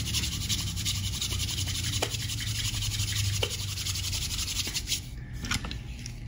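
A pair of hands rubbed briskly together, skin on skin, in a rapid steady back-and-forth that stops about five seconds in. The friction is meant to warm the hands.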